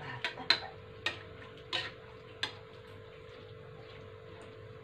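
Metal spatula clinking and scraping against a wok while stirring vegetables, about five sharp clinks in the first two and a half seconds, then quieter. A steady hum runs underneath.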